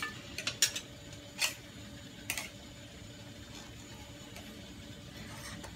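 A plate knocking and clinking against a metal wok as it is lifted out with a steamed fish on it: several sharp knocks in the first two seconds or so, then only a steady low hum.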